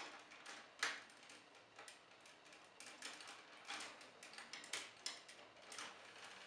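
Faint, irregular plastic clicks and taps as a plastic toy robot figure is handled and its lance is fitted into its hand, the sharpest click about a second in.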